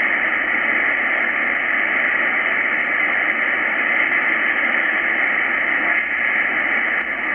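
Icom IC-R8600 receiver in upper sideband on the 20-metre amateur band, giving a steady hiss of band noise as it is tuned between stations, with no signal coming through.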